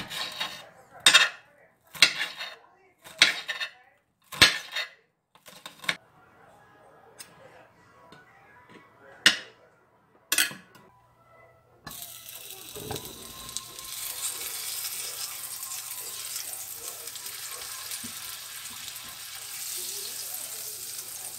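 A kitchen knife chopping green onion on a glass cutting board: sharp single chops about once a second, then two more a few seconds later. About twelve seconds in, butter starts sizzling in a nonstick frying pan with a steady hiss.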